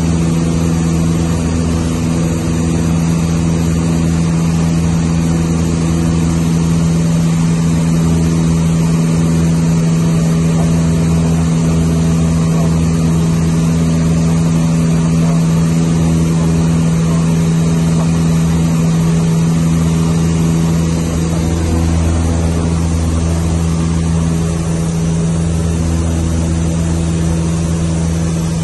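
Cessna 152's four-cylinder Lycoming O-235 engine and propeller running steadily in flight, heard inside the cabin as a constant low drone with a hiss over it.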